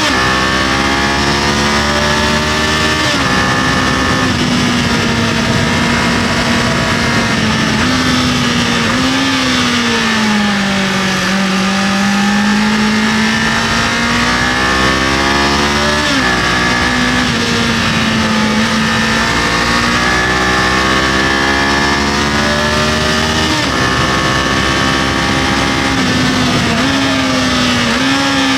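Kawasaki KLE500's parallel-twin engine running under way, its pitch stepping abruptly several times as the rider shifts or rolls the throttle, with a slow dip and rise in the middle. A steady rush of wind and road noise runs underneath.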